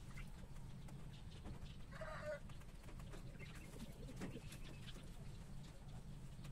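A chicken gives one short call about two seconds in, over a low steady hum. Faint pecking ticks follow as the birds eat dragonfruit.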